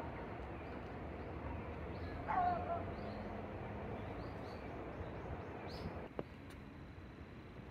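An animal's short meow-like call, falling in pitch, about two seconds in, over steady outdoor background noise. A single sharp click comes near the end.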